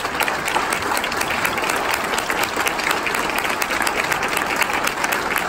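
A roomful of legislators applauding: steady, dense clapping.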